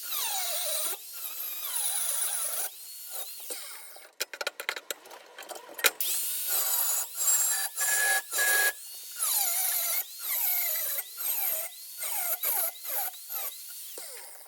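Electric drill's motor running in many short bursts, its pitch rising as it spins up and falling as it slows, with clicks between the runs.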